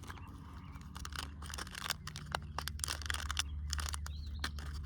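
Plastic lure packaging being handled and torn open: crinkling and rustling with many small irregular clicks.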